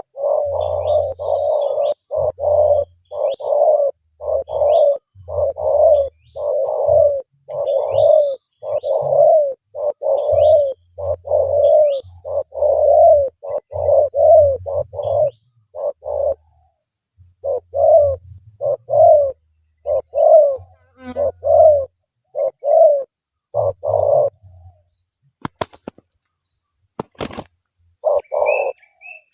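Spotted dove cooing: a long run of short coos about two a second, with a brief break around the middle, stopping about 24 seconds in, then one more call near the end. Faint high chirps of small birds run underneath, and two sharp clicks come after the cooing.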